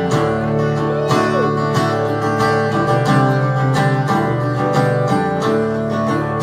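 Acoustic guitar strummed in a steady rhythm through a live PA, the instrumental opening of a song before the vocal comes in.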